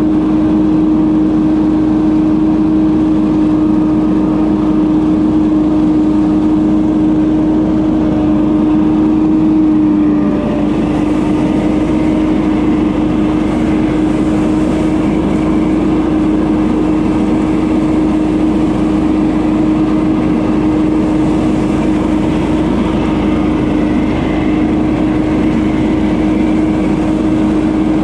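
Gas leaf blower engine running steadily at high throttle, with a brief slight dip in pitch about ten seconds in.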